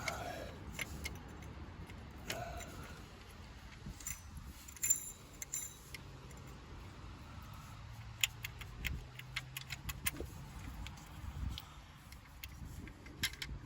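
Scattered light metallic clicks and clinks of hand tools and small metal parts being handled under a car's hood, more frequent in the second half, over a faint low hum.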